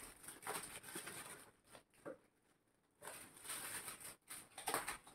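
Foil gift-wrapping paper crinkling and tearing as it is pulled open by hand, in several short, faint bouts with a brief pause about two seconds in.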